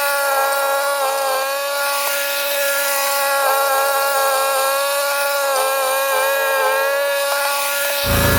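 Ariens 624E two-stage snowblower running steadily under load, a whining engine and drive note whose pitch dips slightly now and then as it takes in snow. A deeper rumble comes in abruptly near the end.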